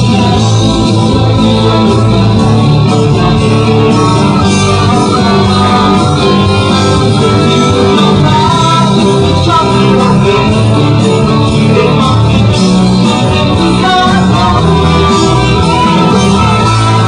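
Live amplified band music with a voice singing over guitar, bass and drums, played loud and steady.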